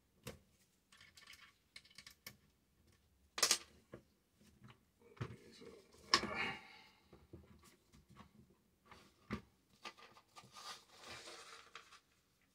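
Small metallic clicks and scrapes from a Smith & Wesson M&P15 AR-15 being worked by gloved hands as its takedown pin is pushed out of the receiver. There is a sharp click about three and a half seconds in, a louder metal clack with a brief rattle around six seconds, and rubbing and sliding toward the end.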